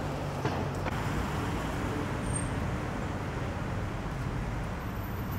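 Steady street traffic hum, an even low rumble with a couple of faint clicks about half a second and a second in.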